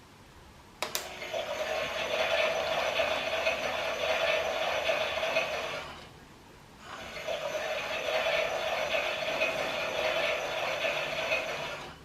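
Klein toy Miele washing machine's battery-driven drum running in wash-tumble bursts. It starts with a click about a second in, runs with a rattling hum for about five seconds, stops briefly, then runs again for about five seconds.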